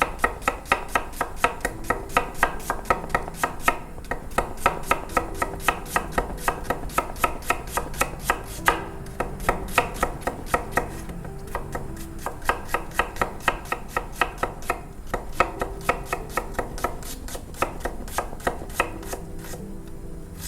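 Kitchen knife slicing an onion on a cutting board: quick, even strokes of about five a second, broken by a few short pauses.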